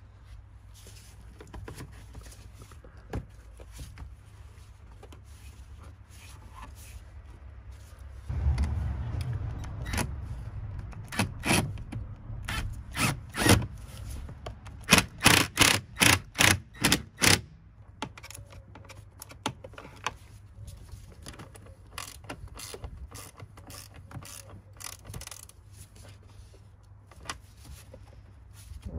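Cordless ratchet working a bolt on the air filter housing: a run of loud, sharp clicks that comes about three a second at its fastest, starting just before the middle and stopping about two-thirds through. Quieter tool and part handling clicks before and after.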